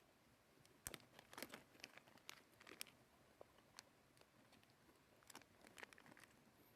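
Faint, irregular clicks and light taps of small hard parts being handled, several a second, thickest about a second in and again near the end.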